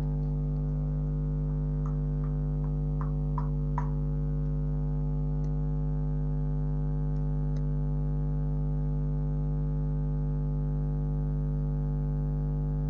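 Steady buzzing hum with several tones held unchanged throughout, plus a few faint short clicks in the first four seconds.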